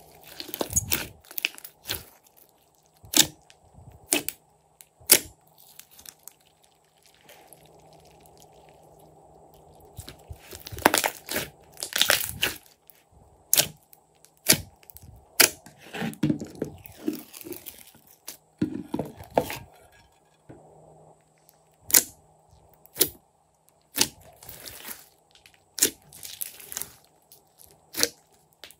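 Hands squishing, poking and stretching thick glitter slime, giving sharp wet pops and clicks at irregular intervals, with longer runs of crackling squelches about a third and two thirds of the way through.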